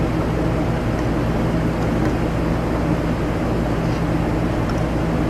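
Spray booth ventilation fan running: a steady, even drone with a low electrical hum under it.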